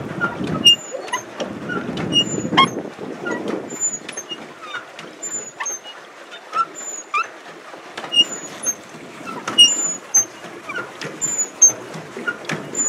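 Paddle boat's rusty pedal drive squeaking as it is pedalled, short high squeaks and clicks coming about once a second. A low rushing noise runs under the first few seconds.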